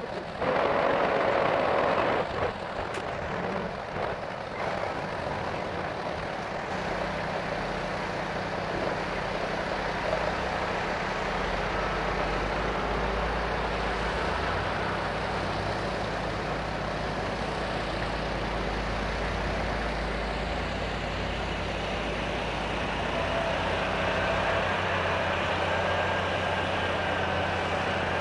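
Heavy diesel engines running steadily: a Peterbilt semi-tractor pulling its end-dump trailer through loose dirt, with a bulldozer working alongside. A loud rushing noise fills the first two seconds, and the engine hum shifts in pitch a couple of times as the machines work.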